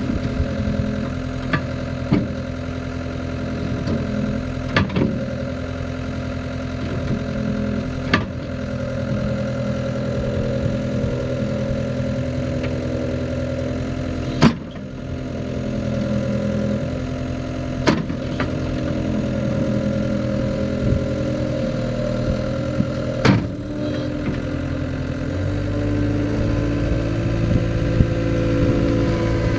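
Cat 262C skid steer's diesel engine running steadily, with several sharp knocks or clanks spaced through the run. Near the end the engine note shifts.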